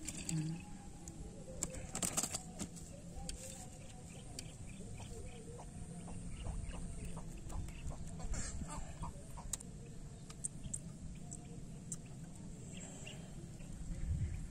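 Birds and fowl calling in short, repeated chirps and clucks, over low rustling and a few sharp clicks, with a faint steady high-pitched whine throughout.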